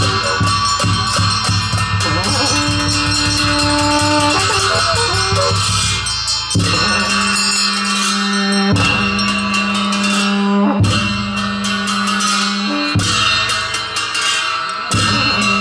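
Music with a fast, steady drum beat and percussion; from about six and a half seconds in, held bass notes change every couple of seconds under the drums.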